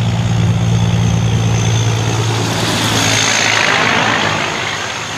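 Semi truck's diesel engine running with a steady low drone as the tractor-trailer drives past, with a swelling rush of tyre and wind noise about three seconds in as the trailer goes by close up, easing off near the end.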